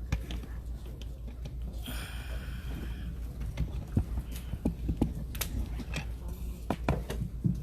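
A congregation getting to its feet: scattered knocks and shuffles of chairs and feet, with a brief scrape about two seconds in.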